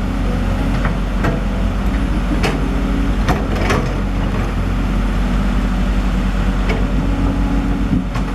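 Cat excavator's diesel engine running steadily, with a few sharp knocks and clanks from the machine working.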